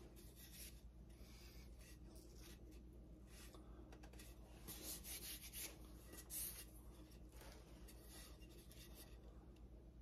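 Near silence with faint rubbing and handling noise as a wooden axe handle is moved about, with a couple of slightly louder rubs about halfway through.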